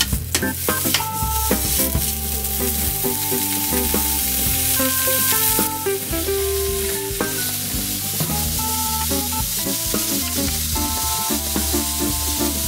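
Raw meat slices sizzling in a hot nonstick frying pan as they are laid in one by one with metal tongs; the frying hiss goes on steadily.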